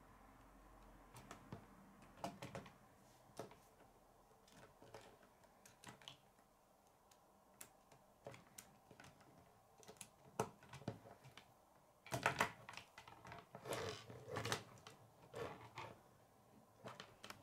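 Plastic K'nex rods and connectors clicking and snapping together as they are handled and fitted, in scattered small clicks with louder clusters around twelve and fourteen seconds in.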